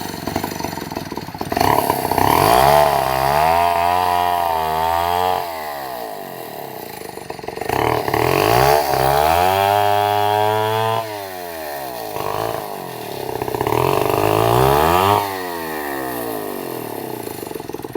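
Stihl MS 250 two-stroke chainsaw revved up to full speed three times, each burst lasting about three seconds and dropping back to idle in between.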